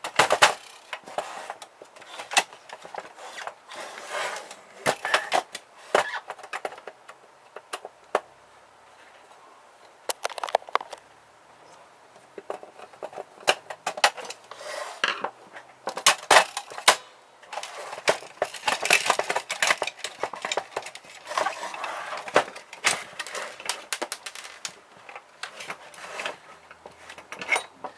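Irregular clicking, knocking and scraping of the plastic and metal parts of a small ribbon printer and hand tools as it is pried and taken apart by hand, with a quieter stretch about eight to twelve seconds in.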